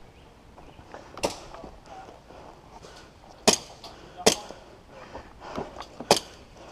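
Five sharp pops of game guns firing, spread unevenly, the loudest in the second half.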